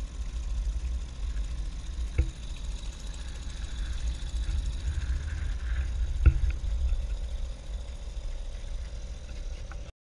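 Small Mercury tiller outboard motor running steadily, pushing a jon boat along: a low rumble with a steady hum over it. Two sharp knocks come about two and six seconds in, the second the louder, and the sound cuts off suddenly near the end.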